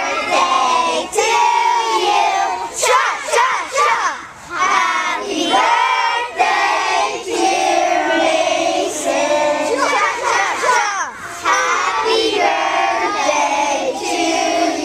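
A group of young children singing and shouting together in loud, overlapping voices.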